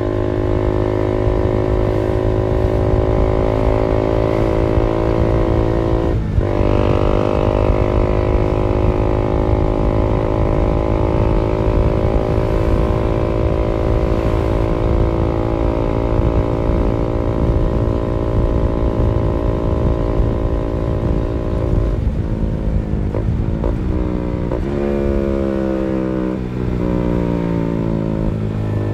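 KTM motorcycle with a short aftermarket exhaust, cruising at a steady engine speed. There is a brief gear change about six seconds in. In the last several seconds the engine note breaks several times and falls in pitch as it is downshifted.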